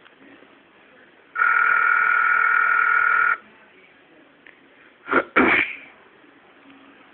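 Telephone ringback tone heard over a phone's speaker: one steady ring of about two seconds, while the call waits unanswered. About two seconds after the ring, a person makes two quick, sharp breathy noises.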